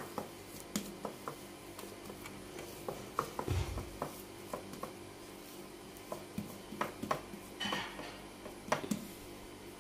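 Hands kneading and pressing pita bread dough in a ceramic bowl: faint soft squishing and rubbing with scattered light taps of fingers against the bowl, and one dull knock about three and a half seconds in.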